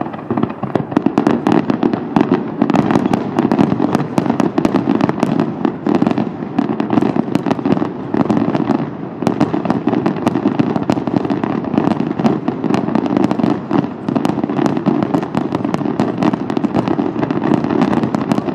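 Fireworks finale: a dense, unbroken barrage of aerial shell bursts, many sharp bangs a second overlapping over a continuous low rumble.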